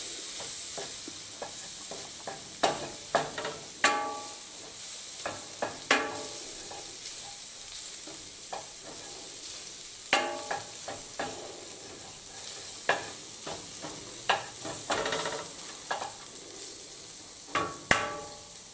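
Wooden spoon stirring and scraping crumbled sausage in a nonstick skillet, cooking the flour into the meat, with a steady sizzle of frying underneath. Scattered sharp knocks of the spoon against the pan, some ringing briefly.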